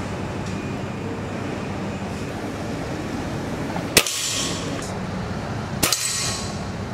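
Two sharp air rifle shots, one about four seconds in and another about two seconds later, over a steady background noise.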